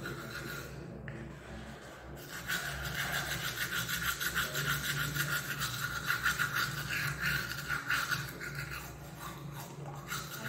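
Teeth being brushed with a manual toothbrush: quick back-and-forth scrubbing strokes, which pause briefly about a second in and then carry on without a break.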